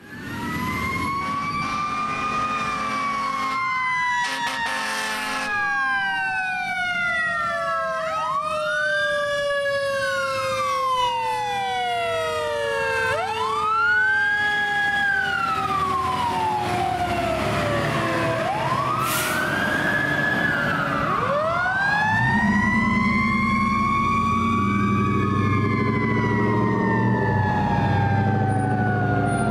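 Fire engine responding with sirens on: an electronic siren wails up and down every few seconds over a second siren tone that slowly winds down in pitch, with a short steady horn blast about four seconds in. In the last several seconds the truck's deep engine rumble rises under the sirens as it passes and drives off.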